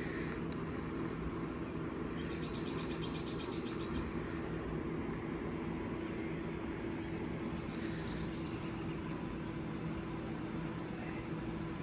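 Birds chirping over a steady low hum: a rapid trill from about two to four seconds in, then higher chirps around seven to nine seconds in.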